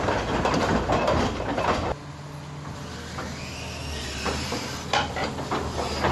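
Komatsu PC450-8 hydraulic excavator working: dense metallic clanking and rattling, which stops about two seconds in. The engine and hydraulics then run steadily, with a whine that rises in pitch, and the clanking resumes near the end.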